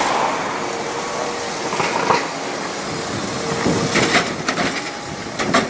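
Red double-decker bus driving past: engine running under steady traffic and road noise, with a few sharp knocks near the end.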